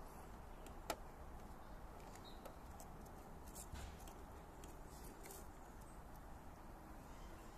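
Faint clicks and scrapes of a radio-controlled rock crawler's rubber tyres gripping and slipping on rock as it creeps up a boulder, with one sharper click about a second in, over a low steady background.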